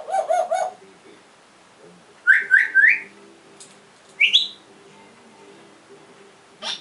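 African grey parrot whistling: a short call at the start, then three quick rising whistles and, about a second later, a single higher rising whistle.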